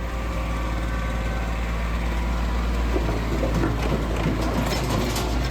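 A vehicle engine running at a steady low idle, with scattered rattling noise over it in the second half.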